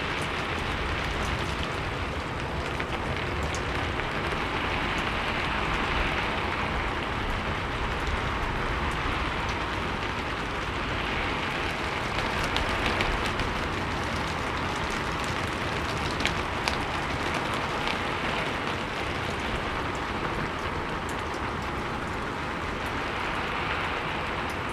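Steady heavy rain pattering on a roof and walls, with the wind driving it in swells that come and go every few seconds, and scattered sharper drop hits.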